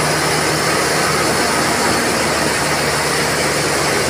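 Dump truck's diesel engine held at high revs to drive the hydraulic hoist as the tipper body rises, a loud, steady drone.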